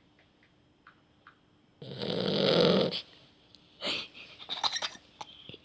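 Beagle puppy snoring: one loud snore about two seconds in, lasting about a second, then fainter short noises.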